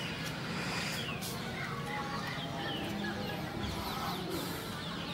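Birds calling: a run of short, high, falling chirps over a steady low background.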